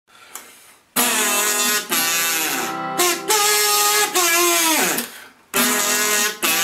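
Harmonica played in a neck rack, blowing a melody in phrases over acoustic guitar. The notes start about a second in, and one note bends steeply down in pitch near the end of a phrase around five seconds in.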